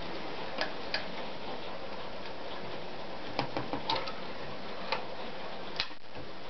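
Sharp clicks and light knocks of an Anker RZ sewing machine's metal body being handled, with a quick cluster of clicks about halfway through as its hinged top cover is lifted open, over a steady hiss.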